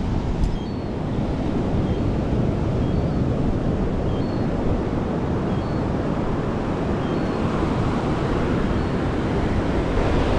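Wind buffeting the phone's microphone over the steady wash of ocean surf breaking on a beach.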